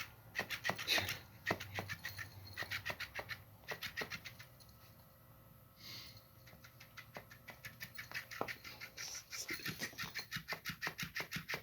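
Motorized floppy-fish cat toy flapping, its motor making a rapid, rasping metallic sound like someone sawing wood. It goes quiet for a couple of seconds midway, then starts up again.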